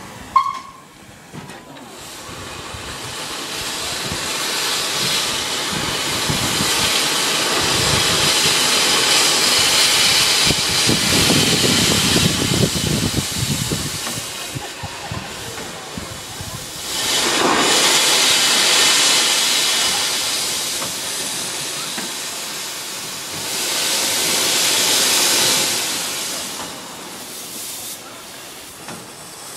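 Narrow-gauge steam tank locomotive No.7 'Tom Rolt' hissing as it lets off steam, in one long swelling blast followed by two shorter ones. A brief sharp sound comes just at the start.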